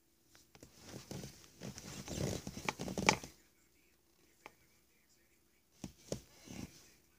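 Aluminium foil crinkling and crackling as it is pressed and shaped by hand: a busy burst of about three seconds, then a click and a few short crackles near the end.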